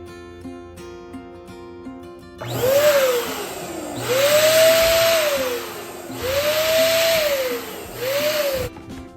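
Electric balloon inflator motor running in four bursts about two seconds apart, its whine rising in pitch as it spins up and falling away as it is switched off. Background music plays throughout.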